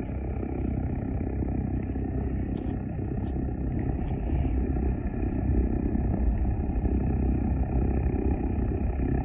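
Single-engine light aircraft's piston engine and propeller running at low taxi power, growing gradually louder as the plane approaches.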